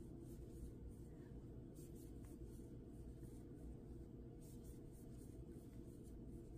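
Faint rustling and soft swishes of acrylic yarn drawn over a crochet hook as double crochet stitches are worked, a few strokes over a steady low room hum.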